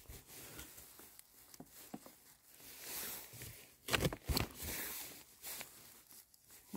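Rustling and crunching of dry leaf litter and soil as a mushroom is dug out of the forest floor, with a few louder scrapes about four seconds in.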